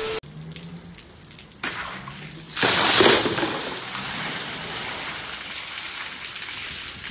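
Water gushing and spraying out of a rooftop plastic water tank and splashing onto the tiles; the rush comes in suddenly about two and a half seconds in, loudest at its onset, then carries on steadily.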